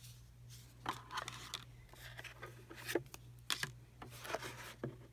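Packaging being handled: a few light clicks and scrapes as a card luggage tag and the cardboard box are moved, over a steady low hum.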